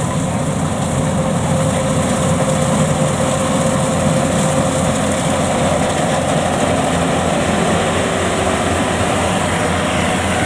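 Yanmar grain-tank combine harvester's diesel engine and machinery running steadily at working speed.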